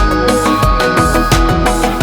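Background music with electronic instruments and a steady drum beat.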